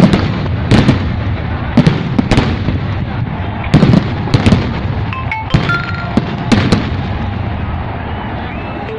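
Fireworks going off: a steady crackling rumble broken by about a dozen sharp bangs at irregular intervals, thinning out near the end.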